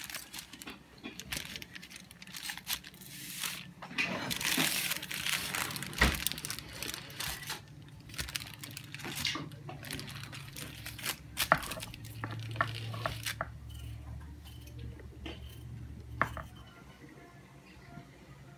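Knife cutting a slab of chocolate fudge on wax paper: the paper crinkles and rustles, with short knocks of the blade. The rustling is heaviest about four seconds in and dies away after about sixteen seconds.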